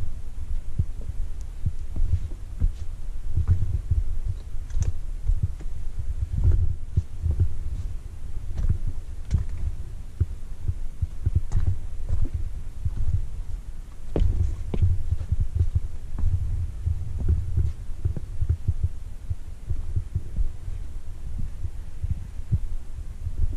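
Uneven low rumble of wind buffeting the microphone, with scattered light clicks and knocks.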